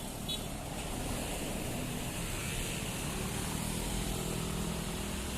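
Road traffic passing: a vehicle's engine running under a steady rush of tyre and wind noise, with the engine note fuller in the second half.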